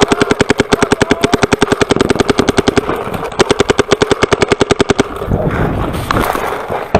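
Paintball marker firing a rapid, even stream of shots, about a dozen a second, with a brief break about three seconds in and stopping about five seconds in.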